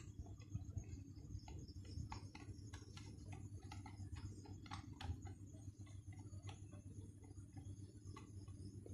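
A screwdriver turning a screw to fix a wall socket to its socket box: faint, irregular light clicks, several a second.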